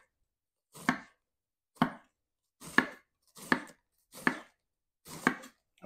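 Sharp kitchen knife slicing a pointed cabbage into thin strips on a wooden cutting board: six cuts about a second apart, each a short crunch through the leaves ending in a knock of the blade on the board.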